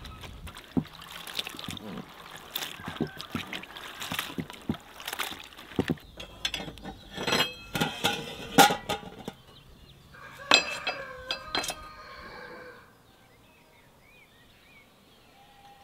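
Hands working morel mushrooms in an enamel basin, with water sloshing, then a run of sharp metal clinks and knocks as a steel pot is handled on the iron top of a brick wood stove. About 13 s in it goes quiet, with a few faint bird chirps.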